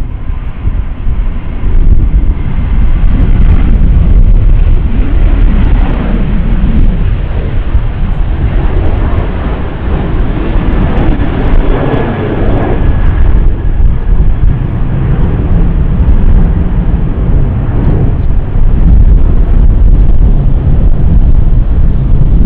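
Boeing 737-800's CFM56-7B turbofans at takeoff power as it rolls, lifts off and climbs away. The engine noise swells to its loudest about halfway through, with a faint high whine, then fades, while gusty wind buffets the microphone with a constant low rumble.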